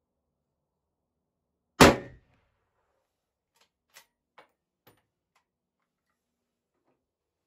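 A single shot from a Savage Axis bolt-action rifle in .270, about two seconds in, with a short ringing decay. About two seconds later come a few light metallic clicks as the bolt is worked.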